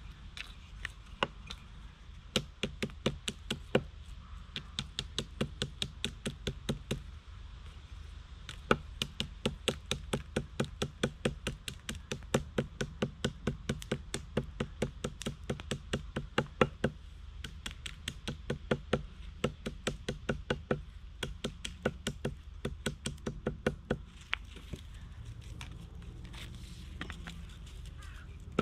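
Rapid repeated knocking, about four knocks a second, in runs lasting several seconds separated by brief pauses.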